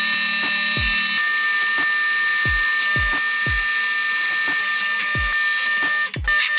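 Drill press running with a steady machine whine as a twist drill cuts into a steel plate, the sound cutting out briefly about six seconds in. Background music with a deep, regular kick drum underneath.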